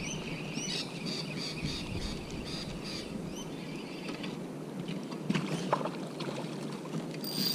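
Water splashing and sloshing as a small bream is played and brought to the bank, with a few sharp clicks and splashes in the second half.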